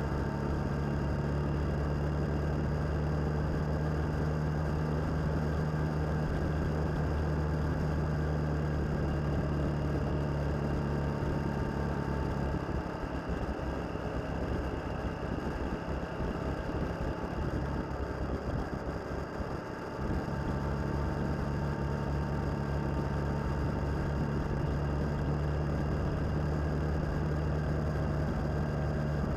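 Suzuki DL650 motorcycle's V-twin engine running at a steady cruise, heard from a camera mounted on the bike. A little under halfway through, the even engine note gives way to a rougher, slightly quieter sound for about seven seconds, then the steady note comes back abruptly.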